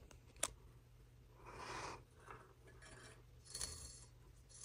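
Faint handling sounds of a braided rope being tied into a knot: soft rubbing and rustling, with a sharp click about half a second in.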